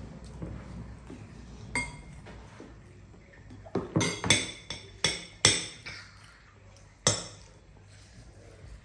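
Metal spoons and forks clinking and scraping against ceramic bowls as children eat rice: about seven sharp ringing clinks, most of them in a quick cluster near the middle.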